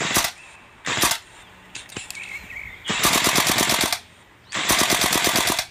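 Gunfire from an AK-pattern rifle: two single shots about a second apart, then two bursts of rapid automatic fire, each about a second long.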